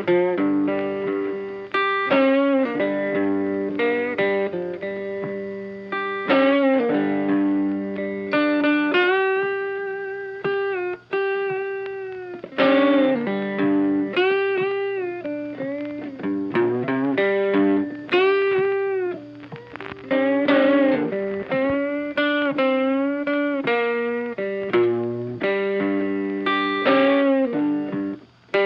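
Funky instrumental background music led by a guitar, with rhythmic plucked notes and some notes bent in pitch.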